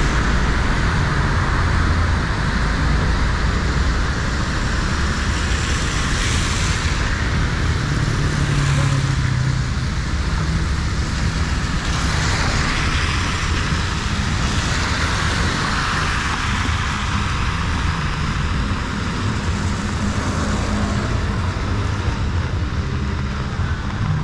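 Road traffic on a rain-soaked city avenue: cars hissing through water on the wet road, swelling as several pass by, over a steady low rumble and the hiss of heavy rain.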